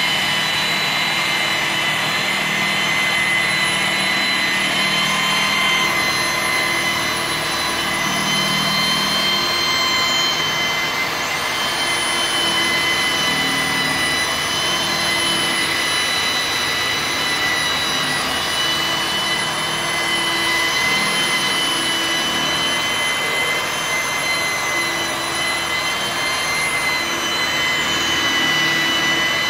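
Electric angle grinder fitted with a polishing pad, running steadily with a high whine while it buffs a glass pane with polishing compound, the pad rubbing on the glass.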